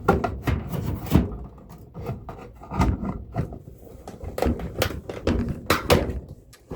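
Hands handling and setting down dryer control-panel parts: irregular clicks, knocks and rubbing of plastic and metal pieces.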